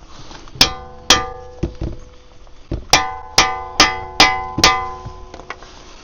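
Hammer blows on steel suspension parts, each strike ringing like a bell: two strikes, a few duller knocks, then five strikes in quick succession. This is typical of knocking the steering and suspension joints loose from the hub during a clutch job.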